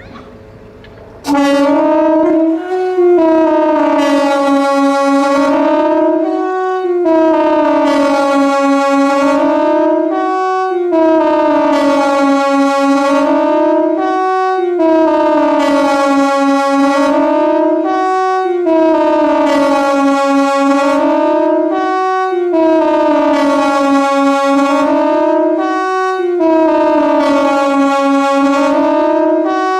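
KTG-10 warning siren sounding, starting abruptly about a second in. It holds a loud wail whose pitch dips and rises again about every two seconds.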